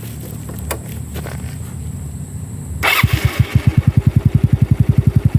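Motorcycle engine breathing through a Sun Racing Pipe V2 adjustable exhaust with its adjuster fully closed (the 'silent killer' setting): started about three seconds in with a short burst, then settling into an even idle of regular exhaust pulses, about nine a second. Before it starts, a low steady hum.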